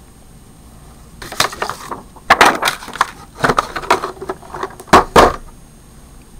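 Irregular clicks, rattles and knocks of metal hand tools being handled in and around a plastic tap and die case, as the tap wrench is lifted out.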